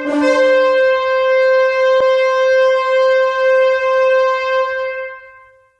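A shofar (ram's horn) blast: one long call that starts on a low note, jumps up to a higher note within the first half-second and holds it, fading out near the end.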